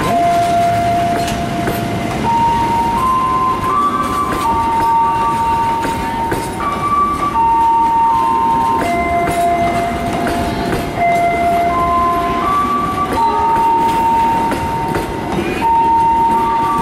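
A passenger train hauled by a CC 206 diesel-electric locomotive rumbling along, its cars clattering, as it moves off from the station. Over it plays a simple electronic melody of single held notes, stepping up and down in pitch.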